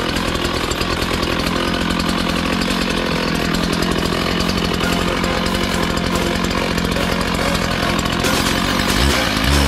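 Two-stroke Stihl gas-powered concrete cut-off saw running at full throttle, its blade cutting into a concrete foundation wall to enlarge a basement window opening. Music comes in near the end.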